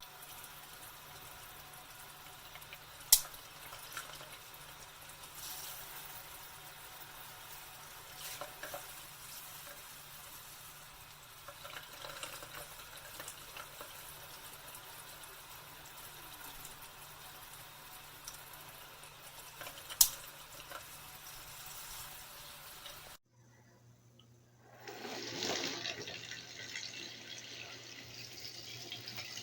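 Water running from a faucet hose sprayer into a bathroom sink, a steady splashing hiss, with two sharp clicks, one early on and one about two-thirds through, and a short break before the water sound returns.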